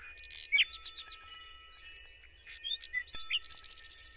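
Songbirds chirping and twittering in short high calls and quick downward sweeps, with a rapid trill near the end, over faint lingering chime tones.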